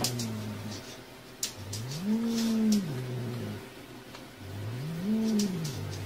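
A cat's low, drawn-out yowls, each rising and then falling in pitch. One trails off at the start, and two longer ones follow, each a second and a half to two seconds long.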